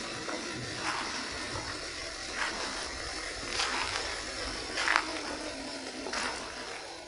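Water splashing in five short bursts about a second apart over a steady hiss: a 1/12-scale RC off-road car driving through rain puddles.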